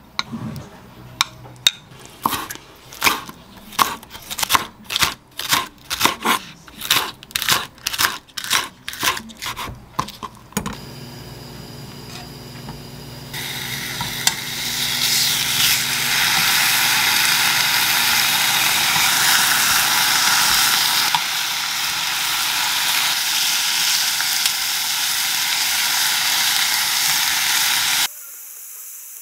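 A wooden spoon stirring seasoning sauce in a glass mug, scraping and clinking about twice a second for some ten seconds. Then a low steady hum, and pork neck slices sizzling steadily in a nonstick frying pan until the sound cuts off sharply near the end.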